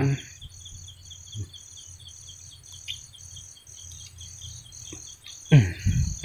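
Crickets chirping steadily in high pulses, about three a second, over a second, faster insect chirping. Near the end comes a brief loud voice-like sound that falls in pitch.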